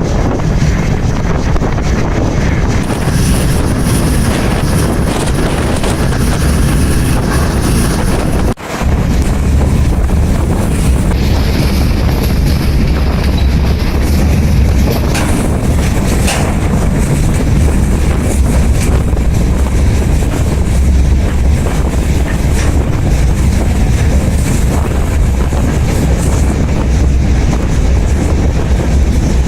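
Heavy wind buffeting the microphone over the low, steady rumble of a moving freight train, as heard while riding on it.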